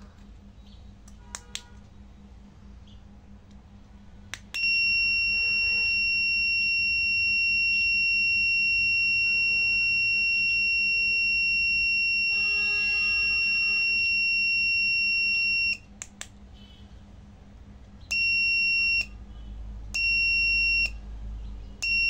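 Electronic buzzer of a home-made remote-controlled alarm circuit sounding one steady high-pitched tone for about eleven seconds while its remote switch is latched on, then three short beeps of about a second each as a button is held and released. Sharp clicks of the remote's switch and buttons come before and between.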